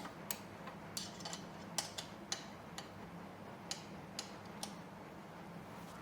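Light, irregularly spaced metal clicks and taps, about a dozen, from hand tools and bolts being worked while putting a chair together, over a faint steady hum.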